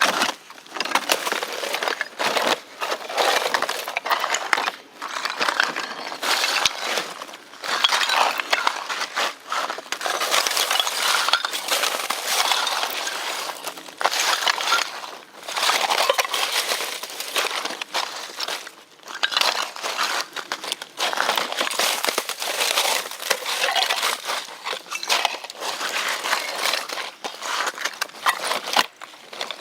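Continuous crinkling and rustling, coming in irregular surges with brief pauses.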